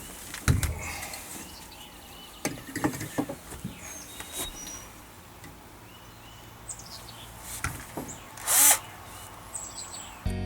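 Scattered clicks and knocks of parts being handled and fitted at a boat's steering helm, with one short, loud burst from a power drill about eight and a half seconds in. Birds chirp faintly now and then.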